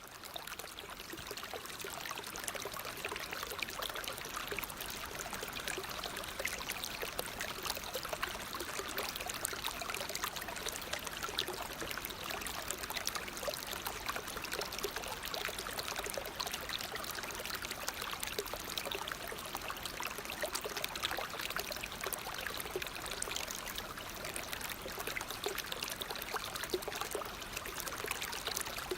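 Waterfall: water falling and splashing steadily, a continuous rushing hiss.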